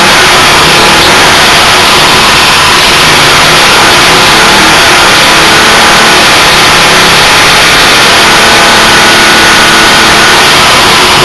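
Briggs & Stratton single-cylinder, horizontal-shaft petrol engine running loud and steady at high speed, with its cylinder head shaved about 2.5 to 3 mm for higher compression despite a broken ring and a scored bore.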